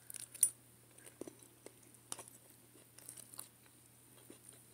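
Eating sounds: scattered small clicks and taps of a fork on a glazed ceramic plate of chicken and rice, with soft chewing, and one sharper click about half a second in. A faint steady low hum runs underneath.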